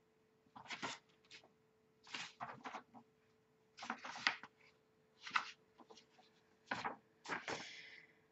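Paper rustling in about six short, faint bursts as the pages of a small booklet are handled and turned.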